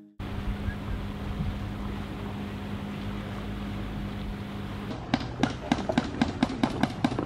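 Steady wind noise with a low hum, heard on a catamaran's deck at anchor. About five seconds in it gives way to a quick run of short sharp sounds, about four a second.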